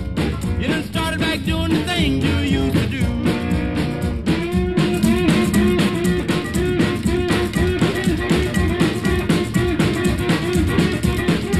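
Background music: guitar and drums with a steady beat.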